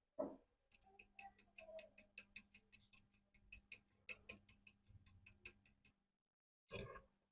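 Even, rapid mechanical clicking, about five or six clicks a second, from the restored antique hand drill's gear mechanism being cranked by hand. It follows a single thump and stops about six seconds in.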